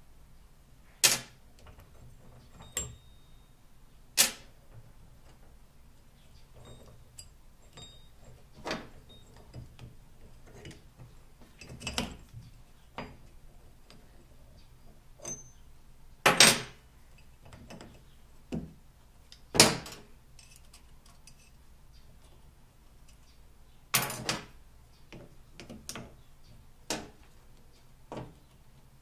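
Pliers and small steel pins clinking and clacking on a steel workbench top as the pins are pulled out of a hydraulic bottle jack's pump linkage. The knocks are sharp and irregular, a few loud ones among many faint ticks.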